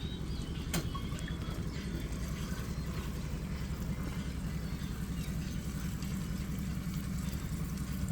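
Diesel engine running steadily at a low, even idle, with one sharp click about a second in.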